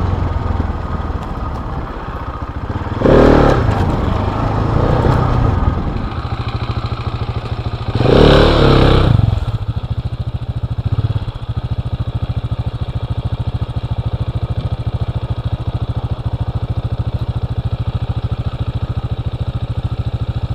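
Husqvarna 701 Enduro's single-cylinder four-stroke engine ridden hard on a dirt track, with two loud bursts of throttle, the second about eight seconds in. After that it settles to a steady, evenly pulsing idle.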